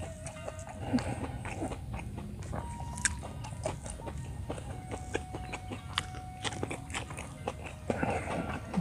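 A person chewing food with the mouth closed, with many small sharp mouth clicks and smacks.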